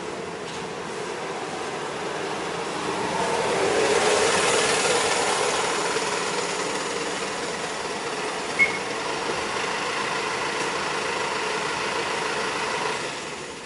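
A motor vehicle passes nearby, its engine and road noise swelling to a peak about four seconds in, holding, then falling away near the end. One short high chirp sounds a little past the middle.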